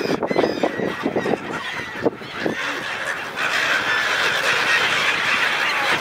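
A large flock of gulls calling over the water, many short squawks overlapping, the chatter growing denser about three seconds in.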